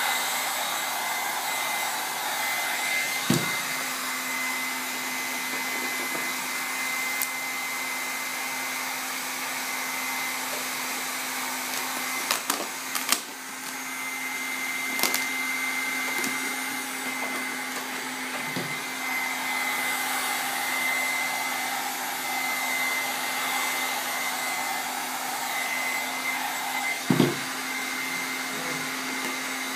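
Electric heat gun blowing steadily, a fan hum with a high whistle, warming vinyl wrap film so it can be stretched over a curved car wing. It dips briefly about halfway through, and a few light knocks come from the part being handled.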